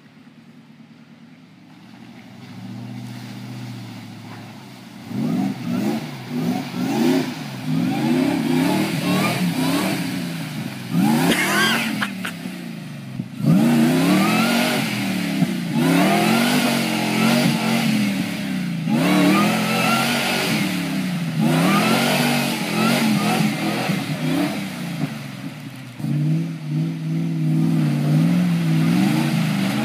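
Supercharged 4x4's engine revving up and down again and again as it pushes through a deep mud track, faint at first and loud from about five seconds in, with mud and water splashing around the tyres. Near the end the engine holds a steadier note.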